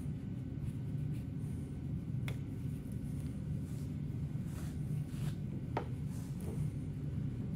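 A few light clicks and scrapes of a metal pick working old, rotten seals off a car lift cylinder's piston, with a steady low hum beneath.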